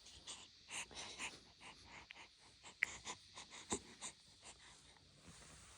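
Faint wheezy breathing in short, irregular rasps, with a few small clicks, the laboured breathing that goes with a cough.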